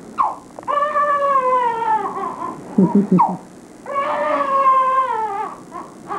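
Newborn baby crying while being dressed: two long wailing cries, each falling in pitch, with short choppy sobs between them and brief cries at the start and end.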